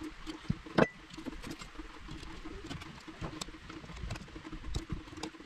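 Small metal clicks and scrapes of a steel snap ring and hooks being worked with pliers, with one sharper click a little under a second in.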